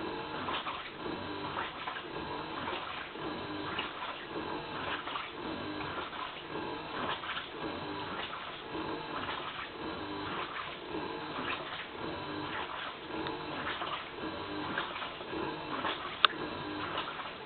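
Toshiba AW-DG16WAG top-loading washing machine in its wash cycle: the motor drives the pulsator back and forth in a regular rhythm about once a second, with water sloshing in the tub. The motor noise is what the owner records as abnormal. There is one sharp click near the end.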